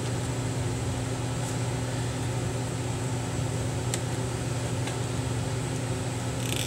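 Steady low hum with room noise, like an air conditioner or mains hum, and a couple of faint light clicks about four and five seconds in, where a plastic pry tool prods the display cable at the hinge.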